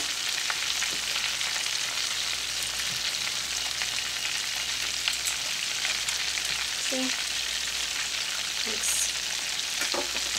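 Chicken pieces deep-frying in hot oil in a cast iron skillet: a steady crackling sizzle.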